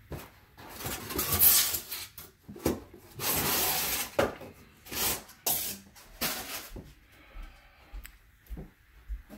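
Handling noises: a series of scrapes and rubs with a few knocks, one longer steady scrape about three seconds in, dying down in the last few seconds.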